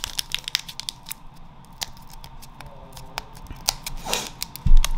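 Foil booster-pack wrapper crinkling and being torn open by hand: a string of sharp crackles and small tearing snaps. Near the end there is a single dull thump.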